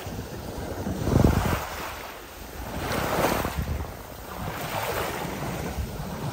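Small waves breaking and washing up a stony shingle beach, in surges about two seconds apart, with wind buffeting the microphone.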